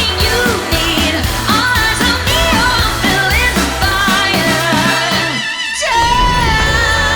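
Pop song with a sung vocal over a heavy bass line. About five and a half seconds in, the music briefly drops out into a rising sweep, then comes back.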